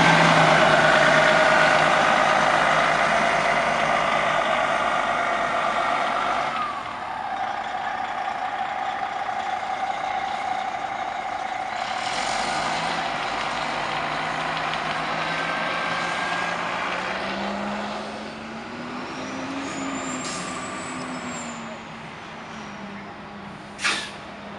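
Prevost H3-45 diesel motor coach pulling away and driving off, its engine fading with distance, the pitch dropping through a gear change and later rising and falling again. Compressed air hisses briefly about halfway through and sharply near the end, typical of a coach's air brakes.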